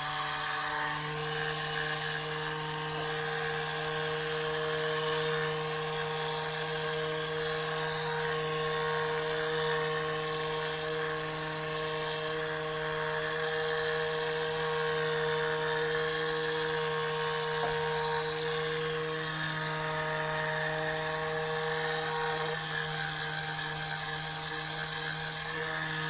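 Handheld electric sander running steadily, a constant motor hum with a rasp as its pad rubs along the edges of a pine block, knocking off sharp edges, burrs and splinters.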